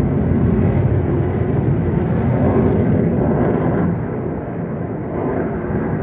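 Jet aircraft flying overhead: a loud, steady, deep roar that eases off slightly about four seconds in.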